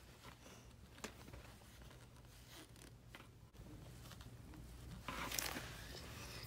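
Faint scratching and rustling of paper as a hand works over a paper chart with a pencil and slides a paper five-dollar bill across it. The rustle is loudest about five seconds in.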